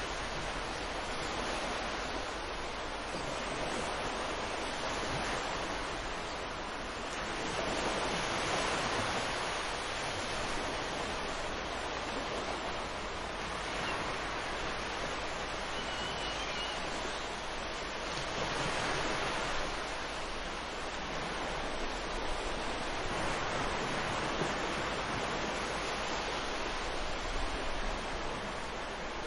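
Ocean surf: a steady wash of breaking waves that swells and eases every five or six seconds.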